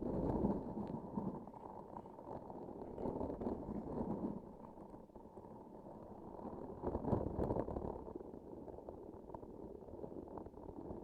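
Close-miked squishing and crackling of a transparent sticky object with a filling inside, pressed and kneaded. It swells louder at the start, again around three to four seconds in, and most strongly around seven seconds in.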